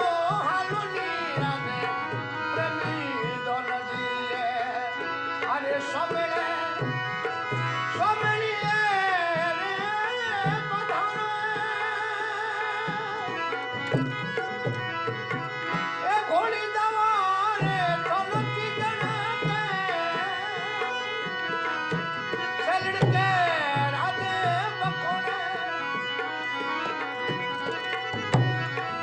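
Rajasthani folk song: a man singing over the steady reeds of a harmonium, with a dholak, a hand-played two-headed barrel drum, keeping the beat.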